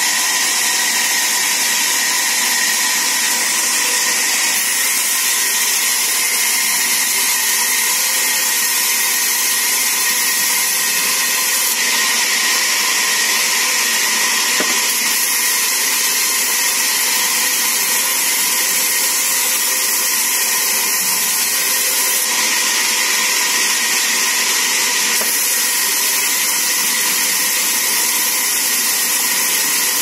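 Sawmill band saw running steadily as mango-wood planks are fed through its blade: a loud, even, high hiss with a faint steady whine, without a break.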